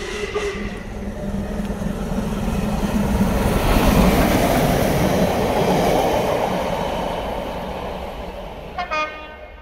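Steam locomotive and its train passing at speed, the rush of wheels and exhaust swelling to its loudest about four seconds in and then fading. A short whistle sounds near the end, with a brief whistle-like tone at the very start.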